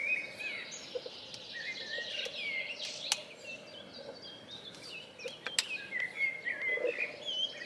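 Several small birds singing and chirping, short twittering phrases one after another, with two sharp clicks, about three seconds in and again past the middle.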